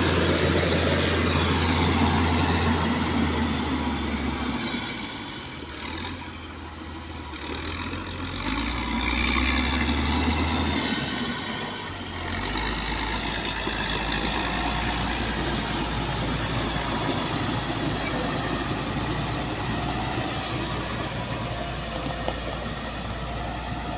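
Motor grader's diesel engine running as it works, its low note shifting a few times in the first half as the load changes, then running steadily.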